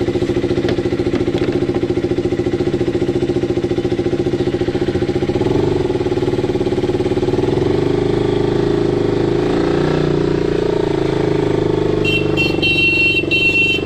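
KTM Duke 200's single-cylinder engine running steadily, picking up slightly about five seconds in. A series of short high-pitched beeps sounds near the end.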